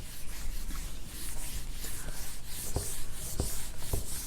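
Writing on a board: a run of short, quick, scratchy rubbing strokes, with a few soft taps about three seconds in.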